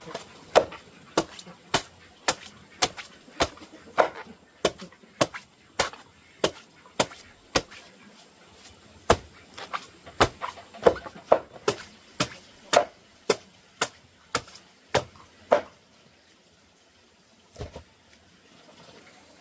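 Steady chopping, sharp blows about one every 0.6 seconds, stopping about 16 seconds in, with one softer knock shortly after.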